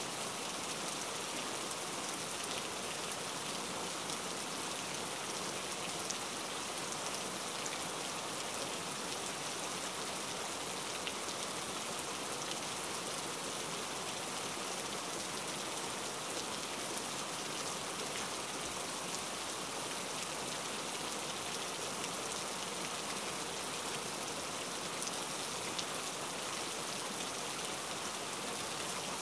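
Steady, even hiss like light rain or static, with a few faint light clicks.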